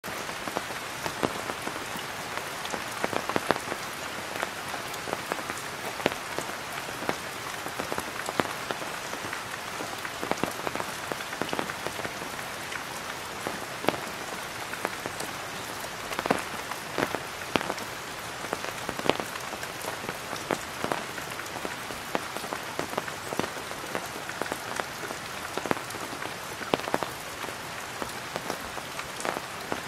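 Rain falling on a tarpaulin: a steady patter with many separate, irregular drops striking the taut sheet.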